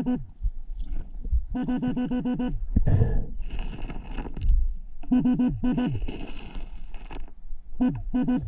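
iKing P750 metal detector sounding target alerts: bursts of fast pulsing beeps at one pitch, four times, as the coil passes over metal. Between the bursts, splashing and scraping of water and gravel.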